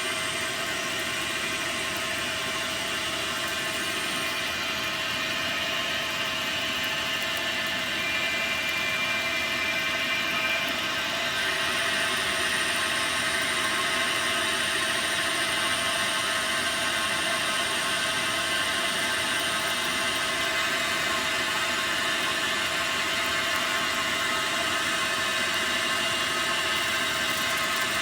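Dyna Mechtronics DM3000 CNC lathe running, spindle and drive motors whirring steadily while it turns a part, a little louder about a third of the way in, with a brief high whine around eight seconds in.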